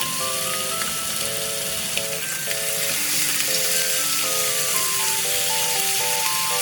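Chicken thigh pieces sizzling and crackling steadily in a hot frying pan, under background music of short plucked notes.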